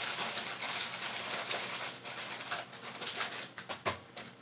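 Brown paper takeout bag rustling and crinkling as hands dig through it. The crackle dies away a little before the end.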